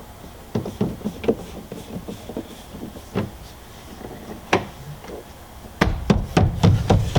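Rubber door weatherstrip being tapped back onto its channel on the cab's door opening: scattered single knocks, then a quick run of knocks near the end.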